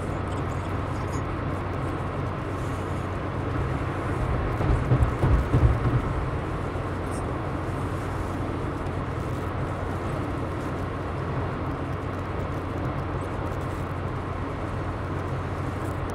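Inside the cabin of a Mahindra XUV driving along a rough mountain road: a steady drone of engine and road noise, with a few louder low thumps about five seconds in.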